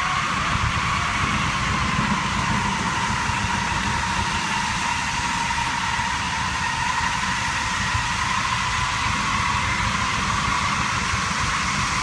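Small farm tractor's engine running steadily while pulling a mini round baler, with a steady high whine above the engine rumble.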